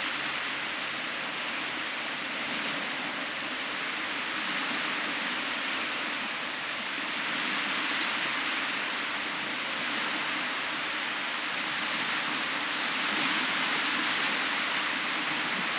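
Small sea waves breaking and washing up a sandy beach: a steady hiss that swells and eases every few seconds.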